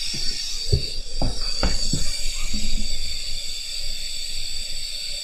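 Steam hissing steadily from beneath a steam-hauled railway coach, a constant high hiss. A few low knocks come in the first two seconds.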